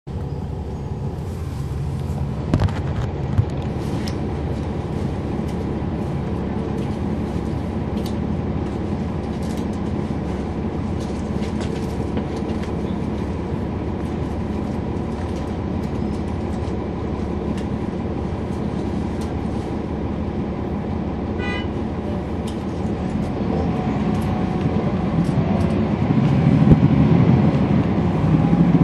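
Cummins ISL9 inline-six diesel engine of a NABI 40-SFW transit bus running steadily, with a couple of short knocks about three seconds in. The engine grows louder and deeper over the last few seconds as it revs up.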